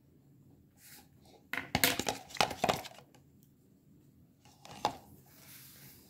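Small plastic eyeshadow compact being handled, with sharp clicks and clinks of small hard objects on a tabletop: a rattling cluster about two seconds in and one more click later on.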